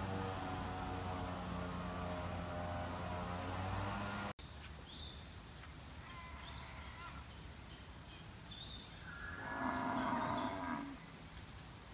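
A cow moos once, a call of about two seconds, in the second half. Before that, a steady low droning hum with many overtones stops abruptly about four seconds in, and after it birds give short faint chirps.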